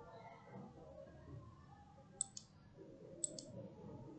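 Computer mouse button clicked twice, about a second apart, each click a quick double tick of press and release, over faint room noise.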